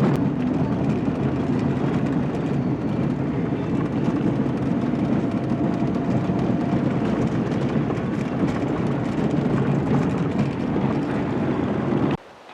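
A vehicle driving along a dirt road: a steady rumble of tyres and engine that cuts off abruptly near the end.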